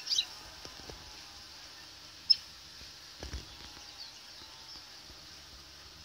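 Quiet outdoor ambience with a steady faint high hiss, a few brief high chirps at the start, one sharp short high peep about two seconds in, and a soft low bump a little after three seconds.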